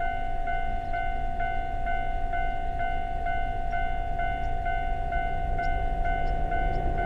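Japanese level-crossing warning bell ringing steadily, about two strokes a second. From about five seconds in, the low rumble of an approaching diesel freight train rises underneath it.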